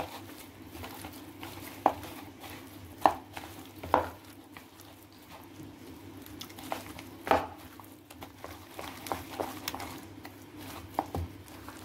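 Hand kneading raw chicken leg pieces in a thick, wet spice-and-flour marinade in a plastic bowl: soft squelching and slapping, with a few louder squishes. A steady low hum sits underneath.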